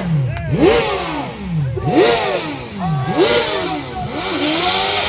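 Motorcycle engine revved in repeated throttle blips, each rising and falling in pitch, about one every second and a bit; near the end it settles into a steady held note.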